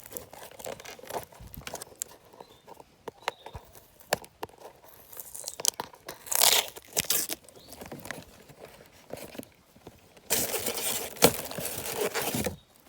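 Sealed packaging of a car amplifier module being torn open: plastic wrap crinkling and tearing, with scattered handling clicks and a longer stretch of rustling about ten seconds in.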